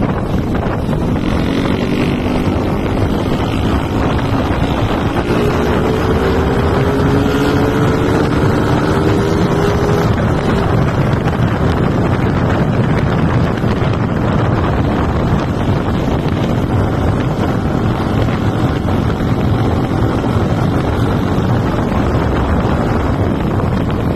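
Steady wind buffeting the microphone over a low rumble, with a faint motor-like hum that rises slowly in pitch during the first ten seconds.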